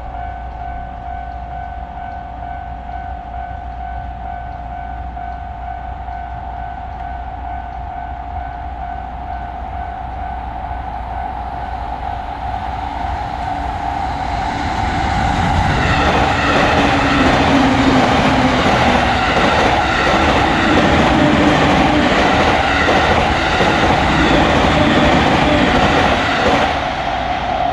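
Japanese railroad-crossing alarm bell ringing steadily. An electric train comes in about halfway through, passes loudly with its wheels clattering over the rail joints, and its noise drops off near the end while the crossing bell keeps ringing.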